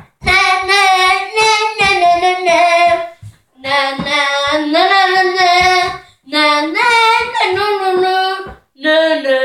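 A child singing alone without accompaniment, in loud phrases of two to three seconds separated by short breaks.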